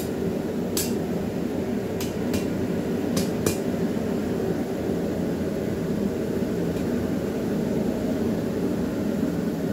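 Hand hammer striking a steel bar on an anvil, about six blows in the first three and a half seconds. A steady low rushing noise runs under the blows and carries on after they stop.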